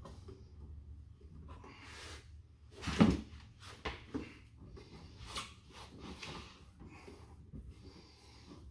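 Hands working a sound-deadening mat down inside a car door's inner cavity: rustling and scraping, with several short knocks against the door's sheet metal, the loudest about three seconds in.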